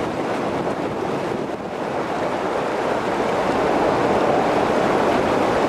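Jet airliner's engines at takeoff power as it climbs away: a loud, steady rushing roar with no distinct tones.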